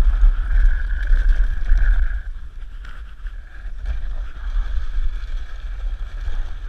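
Dog sled running over river ice and snow: a steady hiss and scrape from the runners under a low rumble of wind buffeting the microphone, heaviest for the first two seconds.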